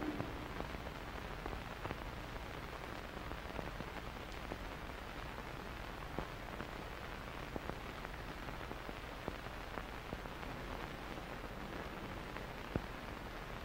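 Steady low hiss with scattered faint clicks and crackles, one sharper click near the end: the surface noise of an old film soundtrack.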